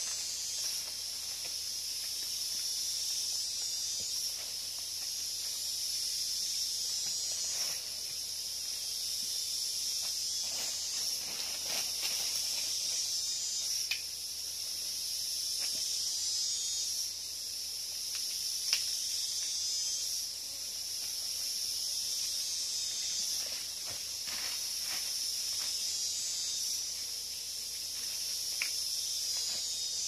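Steady high-pitched rainforest insect chorus that swells and fades every few seconds, with scattered soft knocks and rustles.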